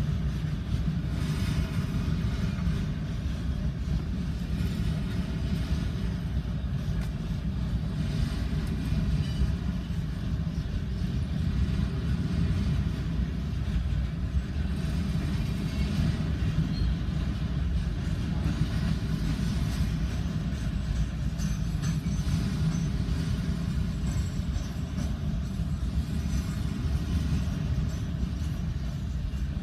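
Freight train rolling past, a steady low rumble of wheels on the rails that carries on without a break.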